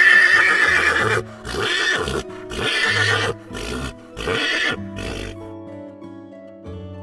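A horse neighing and whinnying in a run of calls, a long one at the start and then shorter ones until about five seconds in, over gentle background music.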